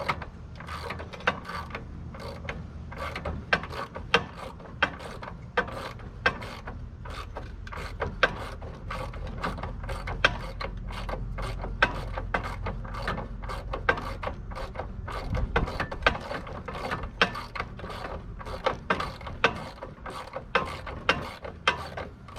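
Hand ratchet wrench clicking in quick, repeated strokes as bolts on a truck heater are turned.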